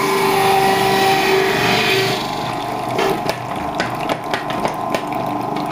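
Electric centrifugal juicer's motor running with a steady whine while it shreds cucumber pushed down its chute. It is loudest for the first two seconds, then runs a little lower with a few sharp clicks.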